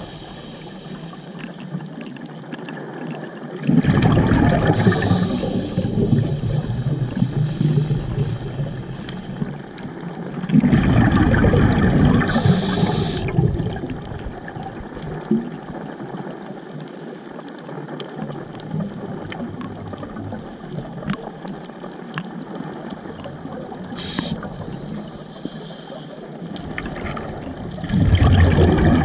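Scuba diver's exhaled bubbles rushing and gurgling from a regulator underwater, three bursts of a few seconds each: about four seconds in, about ten seconds in, and near the end, over a low steady underwater hiss.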